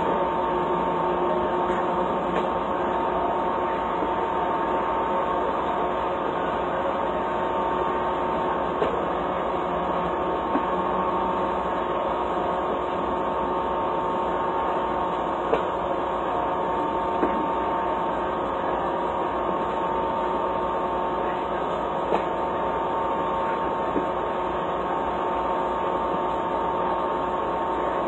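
Steady mechanical hum holding a few fixed tones, with a handful of faint short knocks spaced a few seconds apart.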